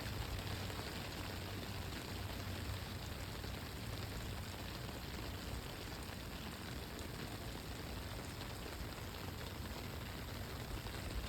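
Steady rain falling: an even hiss of drops with a low rumble underneath.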